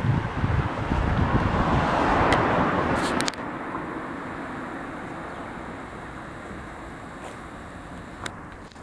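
Outdoor road traffic and wind on the microphone: a loud rushing rumble for about the first three seconds that cuts off abruptly, then a quieter steady background with a faint click or two.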